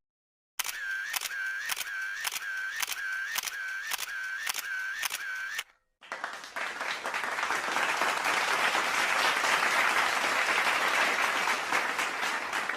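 A run of sharp mechanical clicks, about two a second, each with a brief whirring tone, stops after about five seconds. About a second later a crowd starts applauding, a dense steady clapping.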